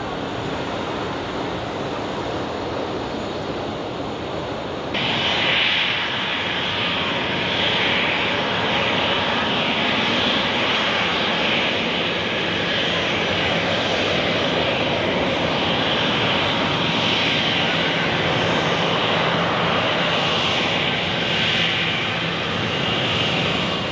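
Jet airliner engines running as an aircraft taxis: a steady rush with a faint whine. About five seconds in it jumps suddenly louder and brighter, then holds steady.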